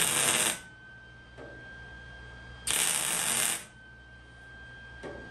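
MIG welder laying two short tack welds, each a crackling sizzle of about a second that starts and stops abruptly. The first ends about half a second in and the second comes about two seconds later. A faint steady high whine runs underneath.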